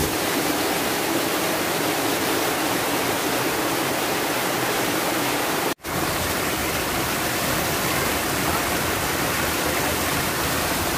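A shallow mountain stream rushing and cascading over rocks and stone slabs in a steady wash of water noise. It breaks off for a split second a little past the middle.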